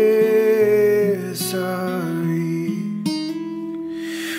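Acoustic guitar playing hymn chords. A man's sung note is held over it for about the first second, then the guitar carries on alone between verses.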